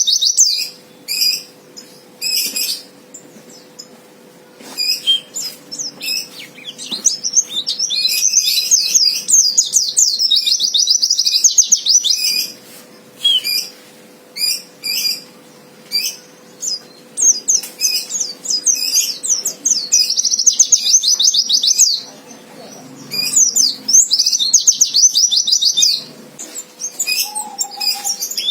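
White-eye (pleci) singing in fast, high twittering trills: long runs of several seconds alternating with short chirps and brief pauses. It is a fighter male's song, used as a lure to provoke other white-eyes into singing back. A faint steady hum lies underneath.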